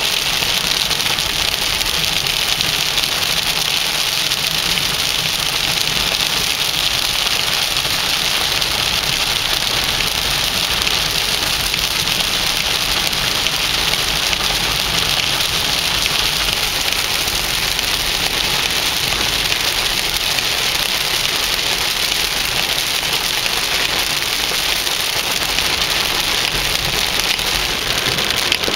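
Heavy rain drumming on a car's roof and windshield, heard from inside the cabin as a steady hiss.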